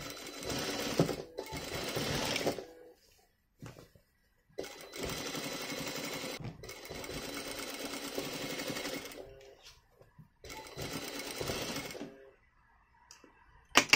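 Sewing machine stitching a skirt hem in three steady runs: about two and a half seconds, about four and a half seconds, then under two seconds, with short stops between them. A single sharp click comes near the end.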